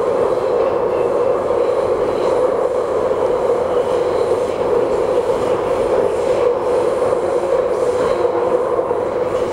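Hong Kong MTR subway train running steadily, heard from inside the carriage. An even, loud rushing rumble with a strong midrange hum.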